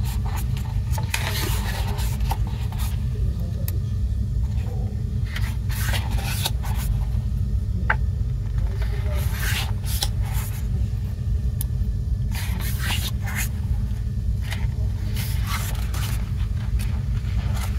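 Pages of a glossy photo book being turned and paper rubbing under the hands: irregular soft swishes and scrapes, over a steady low rumble.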